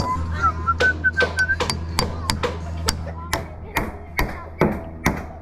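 Hammer blows, roughly three a second, with a few whistled notes in the first second and a half, over a steady low hum.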